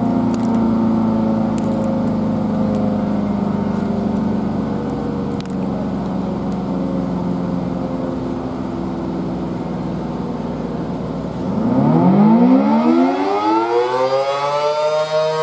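A steady mechanical hum that sinks slightly in pitch, then, about twelve seconds in, a Federal Signal SD10 outdoor warning siren winds up in a loud rising wail and settles into its steady two-note alert tone.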